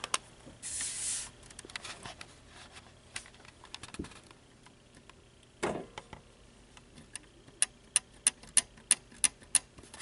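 Light plastic clicks from pressing on the spring-loaded front bezel strip of a Shuttle small-form-factor PC case. Scattered clicks and a brief rustle come first, then near the end a quick run of about ten sharp clicks, roughly four a second.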